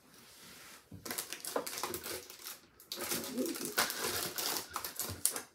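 Lash inventory packaging being handled and sorted by hand: quick crackly rustling and light clicks, starting about a second in, with a short pause near the middle.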